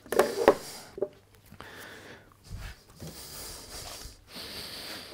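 A small wooden box being handled on a workbench: a few light wooden knocks in the first half second, a dull thump a couple of seconds later, then faint rubbing.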